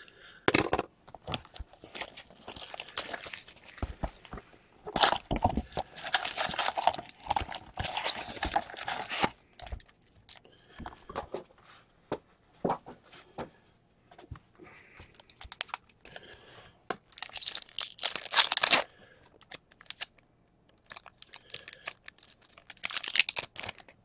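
Fleer Showcase hockey card box and its foil packs being torn open by hand: bursts of tearing cardboard and crinkling wrappers, with small clicks of handling between them.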